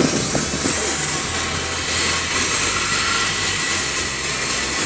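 Electric commuter train standing at the platform, its equipment running with a steady low hum under an even hiss. The hum falls away briefly about three and a half seconds in.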